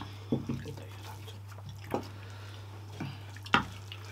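Short wet clicks and smacks of people eating rice and curry with their hands, about five of them with the loudest near the end, over a steady low hum.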